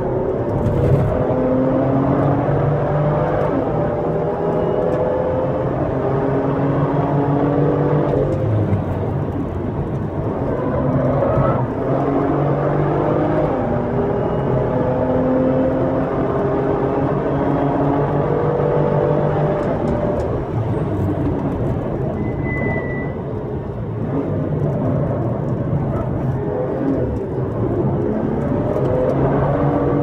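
BMW M2's turbocharged 3.0-litre straight-six heard from inside the cabin while being driven hard on track: the revs climb steadily under acceleration several times and fall away sharply at gear changes and under braking.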